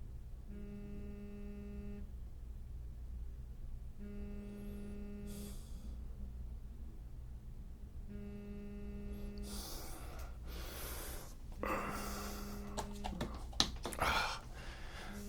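Mobile phone going off with an incoming call: a steady buzzing tone about a second and a half long, repeating about every four seconds. From about two-thirds of the way in, bedding rustles and there are a few clicks as someone stirs and reaches for it.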